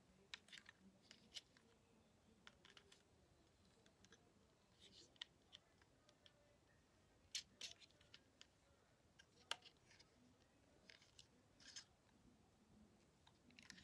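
Near silence broken by a scattering of faint, sharp clicks and ticks, the two loudest about seven and a half and nine and a half seconds in.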